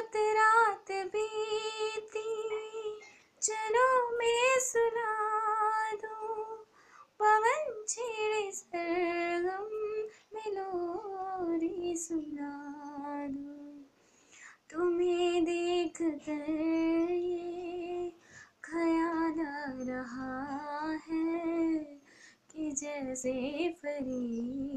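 A high female voice singing a slow Hindi song unaccompanied, in long held notes with short pauses between phrases.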